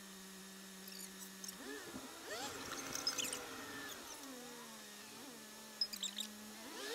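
Car engine heard from inside the cabin, idling with a steady hum, then rising in pitch as the car pulls away and falling back to idle. A few sharp clicks come near the end.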